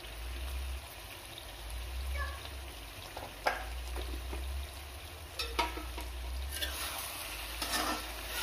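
Steel ladle stirring freshly added salt into a thick, nearly dry chicken curry in a metal kadai, with a light sizzle from the pan. Scattered clinks and scrapes of the ladle against the pan come more often in the second half.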